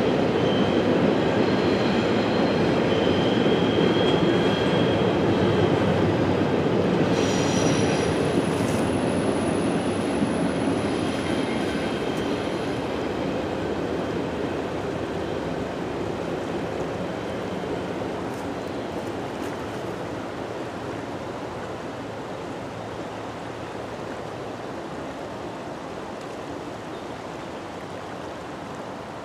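Double-stack intermodal freight cars rolling over the tracks, with high steady squealing tones from the wheels in the first dozen seconds. After that the rumble slowly fades as the train moves away.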